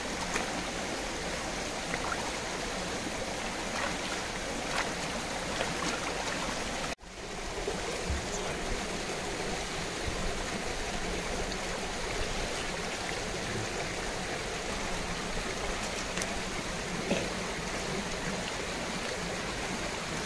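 Shallow river running over stones: a steady rushing wash of water, briefly cutting out about seven seconds in.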